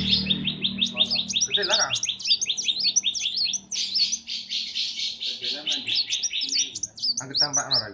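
A kolibri wulung sunbird singing a fast, continuous chattering song of rapid high chirps and short whistled notes, several a second. Faint voices are heard briefly about two seconds in and near the end.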